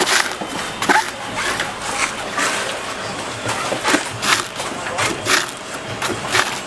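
A large knife chopping into coconuts: about ten sharp strikes at an uneven pace, with voices in the background.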